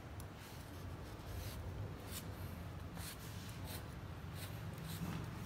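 Tailor's chalk scratching on fabric as lines are marked along a ruler: a series of short, quick strokes over a low steady hum.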